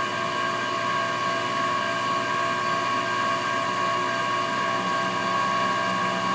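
LabVolt mini CNC desktop mill running steadily, a constant machine whine over a hum.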